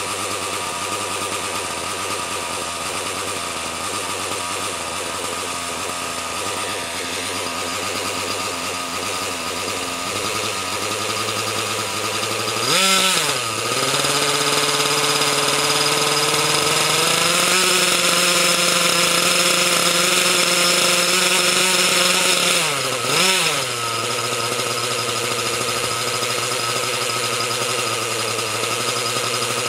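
O.S. .61 SX two-stroke glow engine of a Baron α .60 RC helicopter running on its first start in fifteen years. It runs steadily at low speed. A little before halfway it is blipped with a quick rise and fall in pitch, then holds a higher, louder speed that steps up once more. About three-quarters through it gives another quick blip and drops back to a steady low run.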